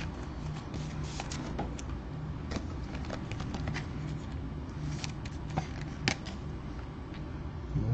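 Soft clicks and ticks of a trading card being handled and slid into a clear plastic toploader, with two sharper ticks between five and six seconds in, over a steady low hum.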